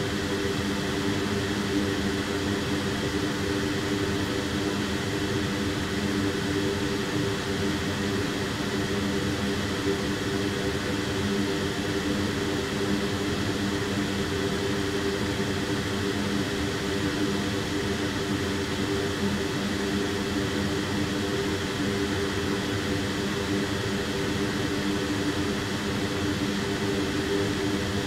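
Steady whir of a fan running at a constant speed, with a low hum of a few steady tones under an even hiss.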